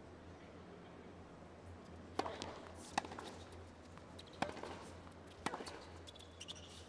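Tennis ball being struck on a hard court: a few sharp pops roughly a second apart, starting about two seconds in, over a low steady arena hum, with a brief shoe squeak near the end.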